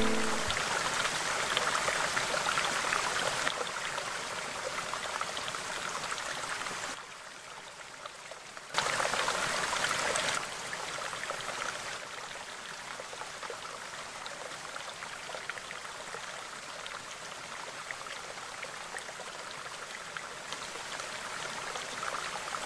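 Fountain water splashing and running steadily down a stone cascade, with its level stepping up and down abruptly a few times and dropping briefly about seven seconds in.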